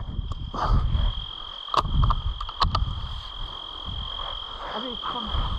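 Wind rumbling and buffeting on the microphone while a steady high-pitched insect trill runs behind it, with a few sharp clicks around two seconds and two and a half seconds in.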